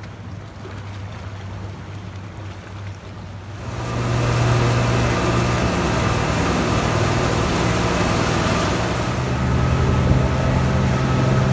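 Motorboat engine running at low revs, then much louder from about four seconds in as the boat runs at speed, its steady drone mixed with water rushing past the hull.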